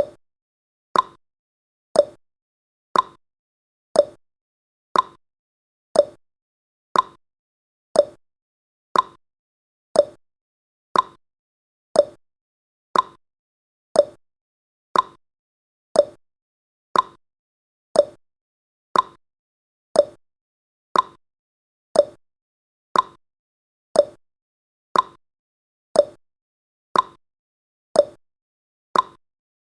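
Countdown timer ticking sound effect: one short, sharp tick exactly once a second, with silence between ticks.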